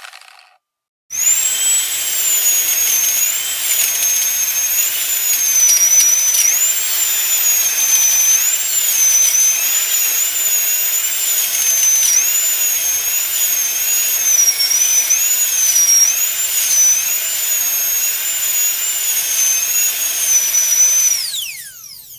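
Dentist's drill whining at a high pitch that wavers up and down, then winding down with a falling pitch near the end.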